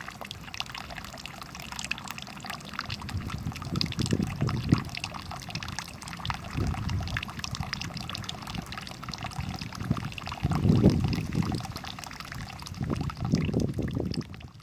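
Water running over a small homemade cement waterfall fountain, trickling and splashing, with a few louder swells of splashing.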